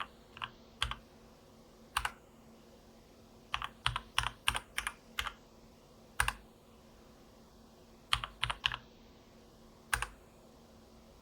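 Keys of a Keychron K8 mechanical keyboard pressed with sharp clicks, some singly and some in quick runs of several presses, with pauses between.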